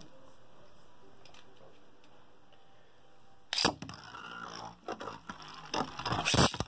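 Quiet room tone, then about three and a half seconds in a sharp, loud crack as the Beyblade tops are ripcord-launched into a plastic stadium. The 3D-printed plastic tops then spin and rattle on the stadium floor and clack against each other several times near the end.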